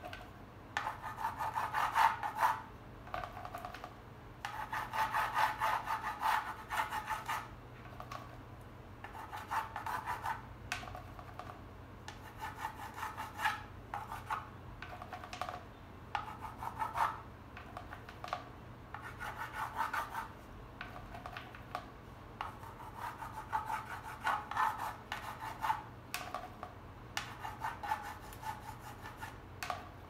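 Palette knife dabbing and scraping acrylic paint on a painting board, in repeated bursts of quick rasping strokes a second or two long. A low steady hum runs underneath.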